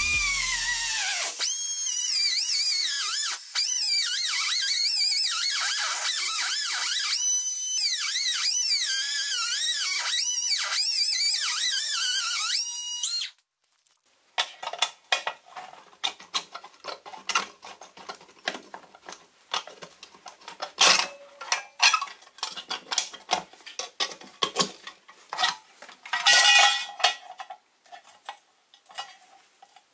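Small power drill whining at high speed, its pitch dipping and rising as it bites into the metal, then stopping abruptly about 13 seconds in. After that, light metallic clicks and clinks of small parts being handled, with a short louder scrape near the end.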